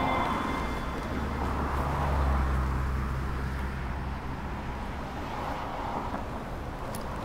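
Street traffic ambience: a steady hiss with a low road rumble from passing traffic that swells about two seconds in and then eases off.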